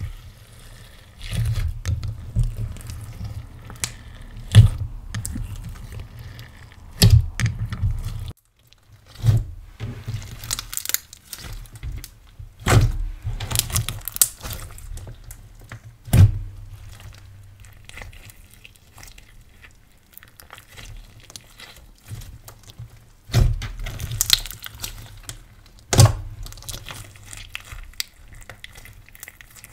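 Hands kneading and stretching glitter-filled clear pearl slime: wet squishing with irregular sharp pops and thuds every few seconds.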